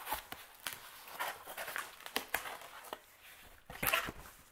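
Packaging for a vinyl record being handled and pulled open: a string of short, irregular rustles and crinkles, with a louder cluster near the end.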